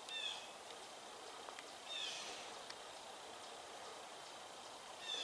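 A wild bird calling three times, short calls about two seconds apart, over a steady background hiss, with a few faint ticks between the calls.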